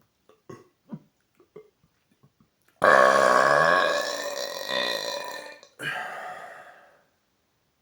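A man's loud burp lasting about three seconds, wavering in pitch, then after a brief break a shorter second burp that fades out, brought up by gulping carbonated Coke Zero.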